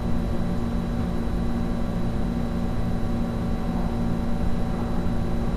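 Steady low hum of room background noise, with a few faint constant tones over it and no sudden sounds.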